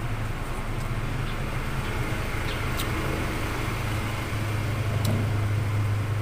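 Steady low hum of a running motor, growing louder over the last couple of seconds, with two faint clicks.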